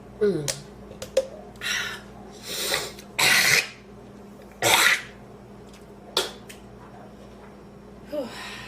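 A woman coughing in about eight separate harsh bursts, the two loudest near the middle, with strained breaths between. She is trying to clear food she inhaled into her windpipe.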